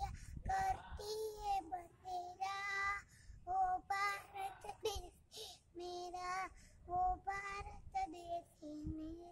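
A young child singing a Hindi patriotic song without accompaniment, in short sung phrases with brief pauses between them.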